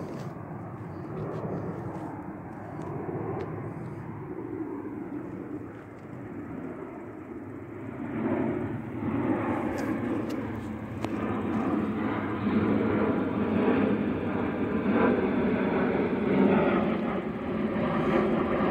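Jet airliner flying overhead, its rumbling engine noise growing louder about eight seconds in and staying loud.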